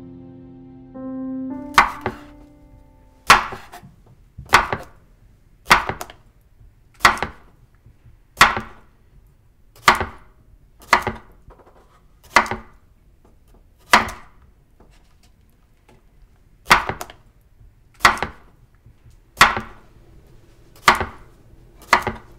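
Kitchen knife slicing a zucchini on a wooden cutting board: slow, evenly paced cuts, each a sharp knock of the blade hitting the board, about sixteen in all at roughly one every second and a quarter.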